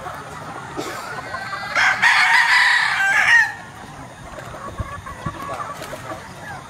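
A gamefowl rooster crows once, about two seconds in, the crow lasting about a second and a half. Other fowl call faintly around it.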